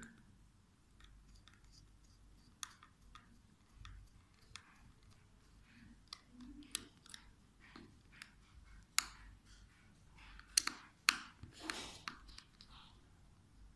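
Small screwdriver turning a screw in the plastic battery cover of a handheld pistol grip: faint, scattered clicks and scrapes. From about nine to twelve seconds in come a few louder plastic clicks and knocks as the grip and its cover are handled.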